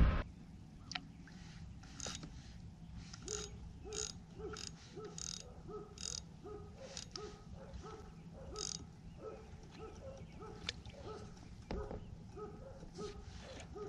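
Spinning reel being cranked, its gears and handle clicking in a steady rhythm of about two clicks a second as line is reeled in while jigging.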